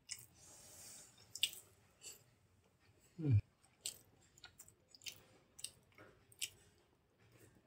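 Close-up eating sounds: chewing and wet mouth clicks while eating idli with thick green coconut chutney. About three seconds in there is one short, louder low sound that drops in pitch.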